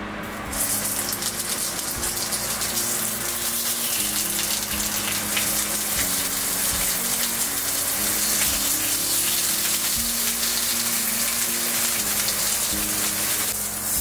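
Pork loin sizzling as it sears in a hot cast iron skillet. The sizzle starts abruptly about half a second in, as the meat is laid into the pan, and keeps going while it is turned. Background music plays underneath.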